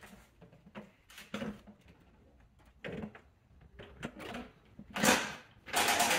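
Hand work behind a plastic wheel-arch liner as a coarse 10 mm bolt is fed up through the bumper into the fender: scattered soft knocks, rubs and rustles, with louder scraping bursts about five seconds in and again near the end.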